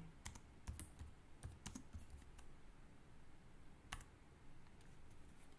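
Faint typing on a computer keyboard: a quick run of key taps over the first two seconds or so, then a single tap about four seconds in.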